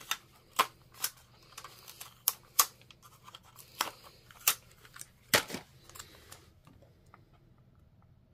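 A quick run of sharp clicks and short scratchy rustles for about six seconds, then it goes quiet: hands handling thin metal dies, paper and tape on a die-cutting plate.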